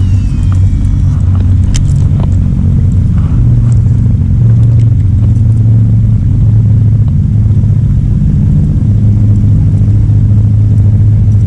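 Steady low drone of an engine idling nearby, a deep even hum that barely changes pitch.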